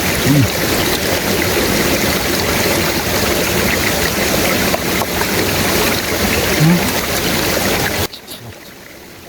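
Steady, loud rushing noise like flowing water, cut off abruptly about eight seconds in, leaving a much quieter background.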